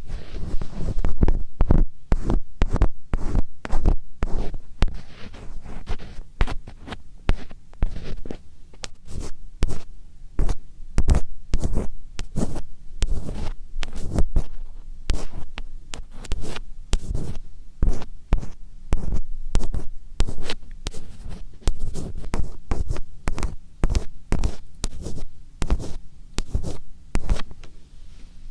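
ASMR 'karikari' scratching close on a microphone: quick, uneven scratching strokes, several a second, each with a low thud, and no whispering.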